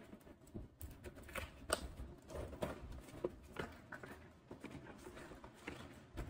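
A cardboard parcel being opened by hand, with faint, irregular crackles, scrapes and taps as its flaps are pulled back and the packaging inside is handled. The sharpest crackle comes a little under two seconds in.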